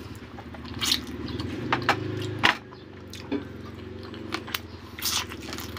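A man chewing and smacking his lips as he eats soft braised chicken and rice with his fingers, with a string of short sharp clicks. A steady low hum runs underneath.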